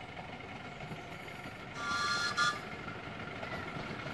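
Miniature steam locomotive's whistle giving one short toot, under a second long, about two seconds in, over steady background noise.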